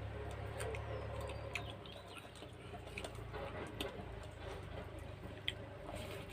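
Mouth sounds of a person eating rice and dal by hand: scattered wet clicks and smacks from chewing, a few sharper ones standing out.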